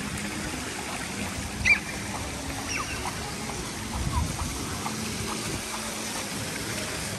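Water from an ornamental fountain running and splashing in a steady hiss, with one short, sharp, high squeak about a second and a half in.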